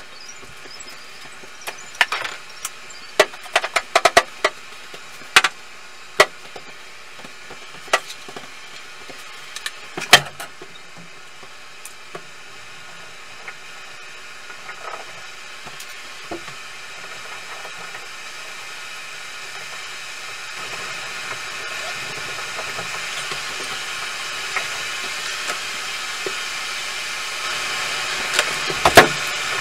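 Hand work at a bathtub during tub and surround removal: a string of sharp knocks and clatters through the first ten seconds, then a steady hiss that slowly grows louder toward the end.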